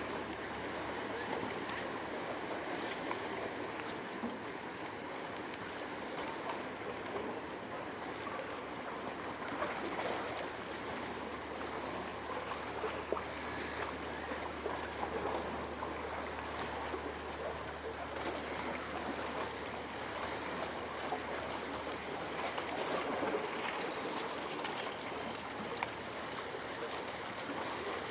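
Paddle steamer's water churning and splashing steadily, with a faint low hum underneath that fades out about two-thirds of the way through.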